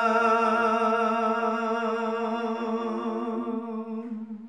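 A man's voice holding one long sung note at the end of a line of Gojri bait, steady in pitch with a slight waver, fading out near the end.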